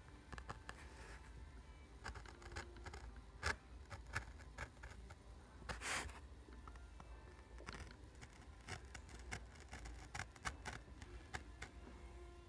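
Chipboard being cut by hand: irregular snips and clicks with scraping, and one longer scrape about six seconds in.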